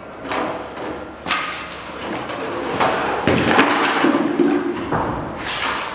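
Wooden furniture panels and metal desk legs being handled and set down on a concrete floor: several separate knocks and thuds, with a short ringing tone in the middle.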